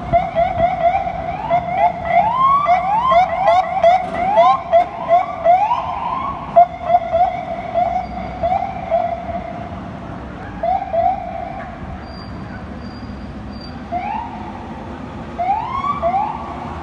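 Emergency vehicle sirens yelping, with short rising sweeps repeating several times a second mixed with slower rising wails. They drop away for a few seconds about two-thirds through and return near the end, over a steady hum of street traffic.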